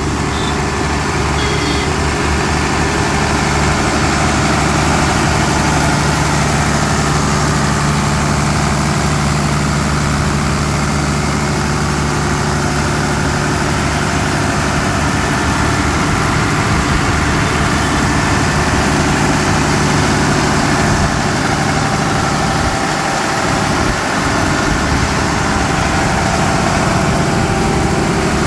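Six-cylinder Tata diesel engine of a 62 kVA generator set running steadily, just after starting.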